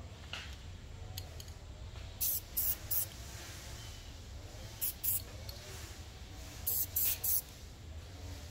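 Aerosol spray paint can sprayed in short hissing bursts: three quick sprays about two seconds in, two more about five seconds in, then three more near seven seconds.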